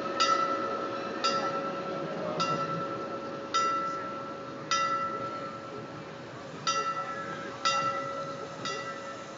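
A bell struck repeatedly, about once a second, eight strokes in all with a short pause about midway. Each stroke rings on with a clear metallic tone, over a steady faint hum.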